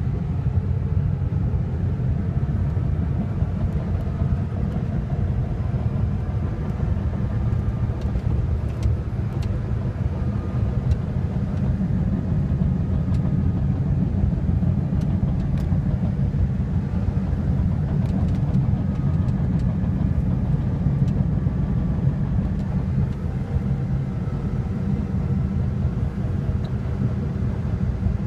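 Caterpillar D6T LGP bulldozer's six-cylinder diesel engine running, a steady low drone with a few faint ticks over it.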